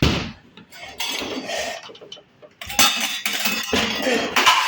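Dishes and containers clattering and clinking as they are shifted about in a fridge, with a sharp knock at the start and a louder run of clinks in the second half.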